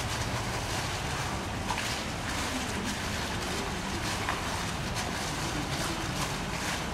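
Steady rush of wind on the microphone, with the low hum of a distant jet airliner on final approach.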